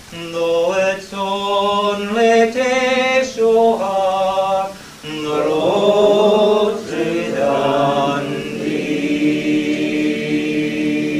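A room of voices singing together unaccompanied in harmony, with drawn-out phrases, closing on a long held chord in the last few seconds.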